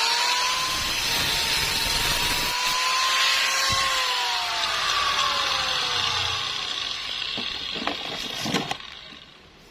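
A power tool running with a loud hiss and a steady motor whine that sags around the middle, a few sharp clicks, and then fading near the end.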